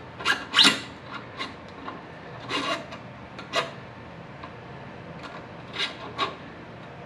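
Short scrapes and clicks as a motorcycle shock's remote reservoir canister is handled and fitted against its metal mounting bracket, several in the first four seconds, then two more near the end.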